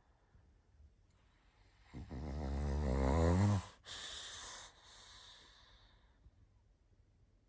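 A sleeping pug snoring: one long snore about two seconds in, rising in pitch, followed by a breathy hiss that fades away.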